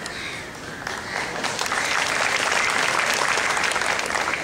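Audience applauding, building up about a second in and holding steady.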